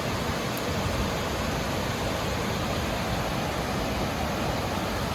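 Heavy rain pouring steadily, a dense, even wash of sound with no let-up.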